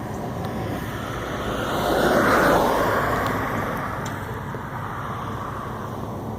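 A vehicle passing by over a steady background rumble. The noise swells to its loudest about two and a half seconds in, its pitch dropping as it goes past, then fades away.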